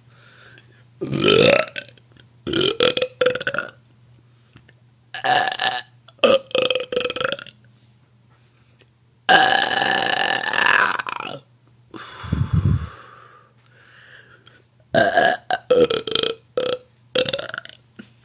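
A woman belching over and over, a string of separate burps, some gliding up in pitch; the longest and loudest comes about nine seconds in and lasts about two seconds, with a cluster of shorter ones near the end. She puts the gas down to a meal of vegetables and rice.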